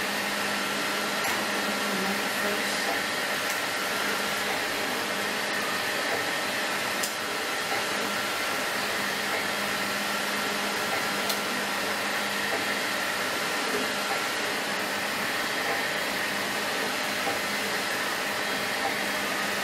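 Steady whooshing background noise, like a fan or air handler running, with a faint steady hum and a couple of light clicks.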